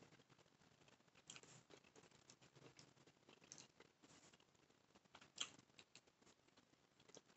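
Near silence with faint eating sounds: scattered light clicks and scrapes of a plastic fork scooping soft scrambled eggs from a plate, with one sharper click about five seconds in.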